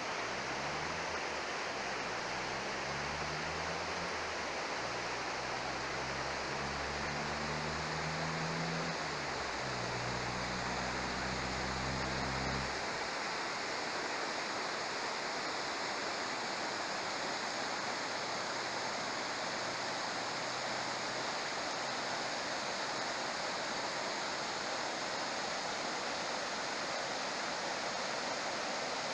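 Steady rushing of a fast-flowing river. A low hum with shifting pitch runs under it for the first half and cuts off suddenly.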